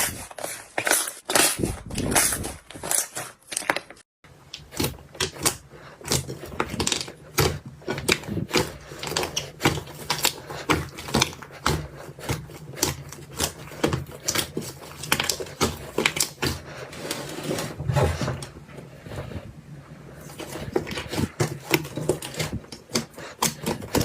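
Slime being squeezed and kneaded by hand, giving dense, irregular crackling pops and clicks. The sound breaks off for an instant about four seconds in, then similar crackling resumes over a faint low hum.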